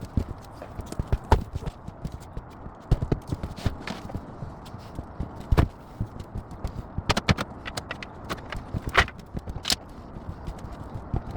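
Irregular knocks, clacks and thumps of things being handled and moved about inside a caravan, some quick and clustered, with a few louder bangs.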